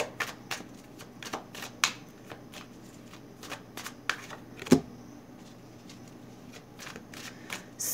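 A tarot deck shuffled by hand, packets passed overhand from one hand to the other: a string of soft, irregular card flicks and slaps, with one sharper snap a little before five seconds in.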